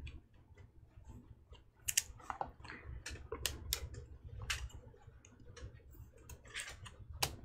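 Topps Chrome baseball cards being flipped through by hand, their stiff glossy stock sliding and clicking against each other in irregular light ticks, with a few sharper snaps.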